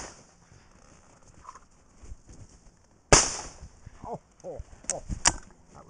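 A single shotgun shot about three seconds in, its report dying away over about half a second. A few spoken syllables and two sharp clicks follow near the end.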